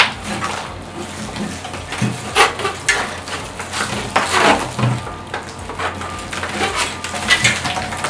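Irregular rustling and scraping, with light metallic knocks, as a moss-bound clump of rooted succulents is dragged up and out through a white metal wire birdcage planter.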